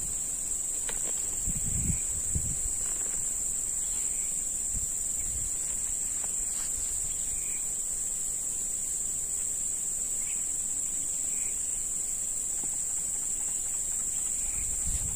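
Steady, unbroken high-pitched drone of an insect chorus, with a few faint short calls scattered through it.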